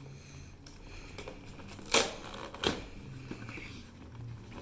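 Packaging of a trading-card collection box being opened and handled: soft crinkling and rustling, with two sharp snaps, the louder one about two seconds in and another a moment later.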